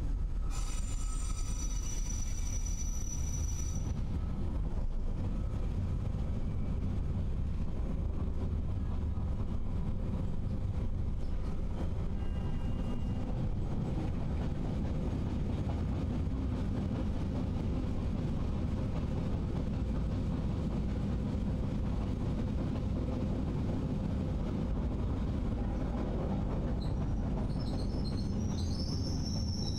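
Roma–Giardinetti narrow-gauge train running with a steady low rumble. Its wheels squeal in several high tones for about three seconds near the start, and another high steady whine begins near the end.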